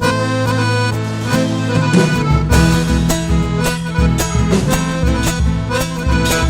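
Live Argentine folk band playing a gato: an accordion melody over strummed guitar, with bass and a steady pulsing beat coming in about two seconds in.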